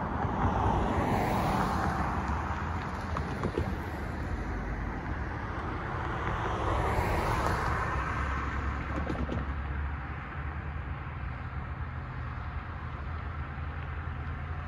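Cars driving through a railroad crossing. Their tyre and engine noise swells and fades twice, loudest about a second in and again about seven seconds in, over a steady low hum.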